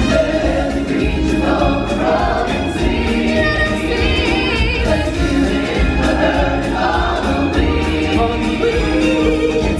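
Choir singing over full musical backing with percussion.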